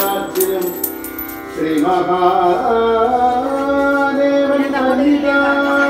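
Music: a melody of long held notes that slide between pitches.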